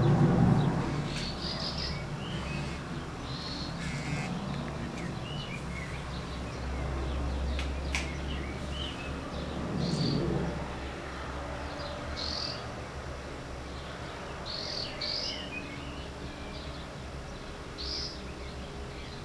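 Birds chirping in short, high calls scattered throughout, over faint outdoor ambience. A low sound fades out in the first second, and a single sharp click comes about eight seconds in.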